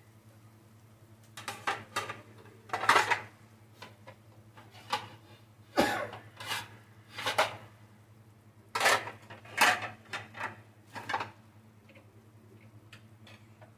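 Kitchenware clattering: utensils knocking and scraping against a pan and dishes in irregular, uneven strikes, over a faint low steady hum.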